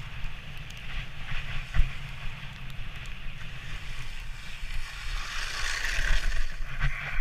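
Wooden sledge's runners hissing over packed snow, with wind on the microphone and a sharp jolt from a bump about two seconds in. Near the end the hiss swells as the sledge skids sideways and throws up snow, braking to a stop.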